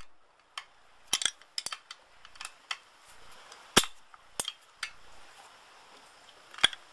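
Steel open-end wrench clinking against a bolt head and the aluminium outboard housing as a mounting bolt is turned in short strokes: about a dozen sharp metallic clicks at uneven intervals, the loudest about four seconds in.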